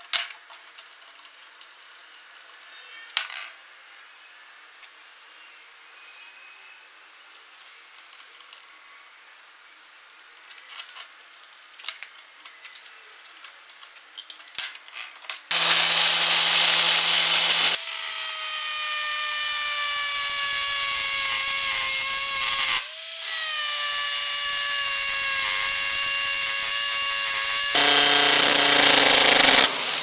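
Angle grinder driving a homemade hammer attachment, driving nails into wood: starting about halfway through, the motor runs loudly with a steady whine that sags slightly in pitch under load, dips sharply once and picks up again. Before that, only a few faint clicks of handling.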